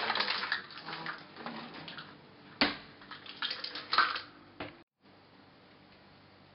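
Kitchen utensils clattering and knocking as a drawer is rummaged through: a run of quick clicks, a sharp knock about two and a half seconds in, and more clatter around four seconds. About five seconds in the sound cuts off abruptly to quiet room tone.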